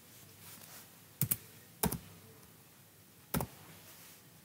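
Sharp clicks at a computer while working a software dialog: a quick double click about a second in, a single click just before two seconds, and another double click past three seconds.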